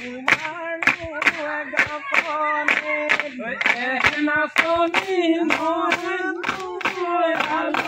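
A group singing a Bihu song together, with sharp claps keeping a steady beat of about two to three a second.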